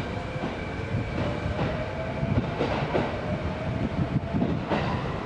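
Kintetsu 22600-series limited-express electric train pulling slowly away from a station platform: a steady traction-motor whine with a few wheel clacks over the rail joints.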